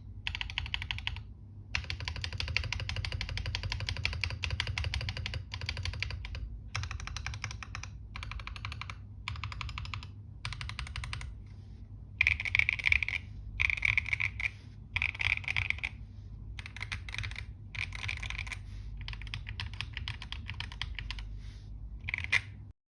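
Fast typing on a mechanical keyboard, in runs of rapid key clacks broken by short pauses, with louder bursts in the second half. It stops abruptly just before the end.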